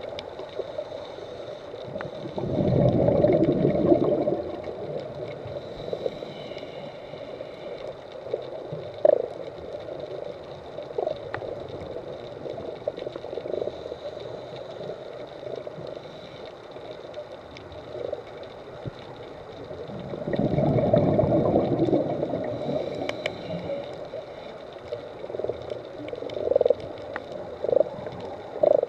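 Underwater fish sounds: several short low knocks or pops, over a steady hiss. Two longer rough rumbling bursts, each about a second and a half, come near the start and about two-thirds of the way through.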